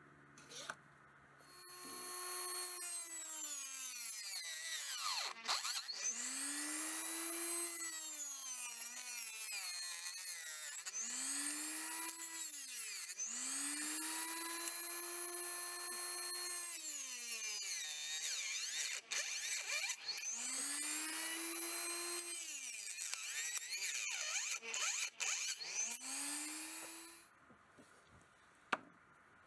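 Small electric benchtop saw running with a high whine, its pitch climbing and sagging about six times as the motor speeds up and slows. It starts about a second and a half in and stops a couple of seconds before the end.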